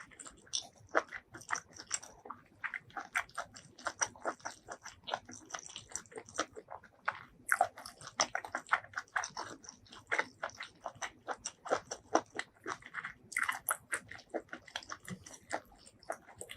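Close-miked eating sounds: biting and chewing, a dense irregular run of short mouth clicks and smacks.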